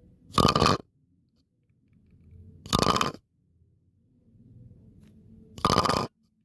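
A looped funny sound effect, three times over: a quiet low rumbling build-up, each ending in a short, loud noisy burst.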